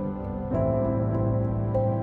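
Background music of sustained chords, the chord changing about half a second in.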